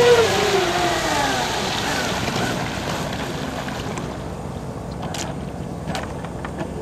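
Fast electric RC catamaran's motor whine, falling in pitch and fading over the first two seconds as the boat slows off its speed run, leaving a hiss of water and wind. A few light clicks near the end.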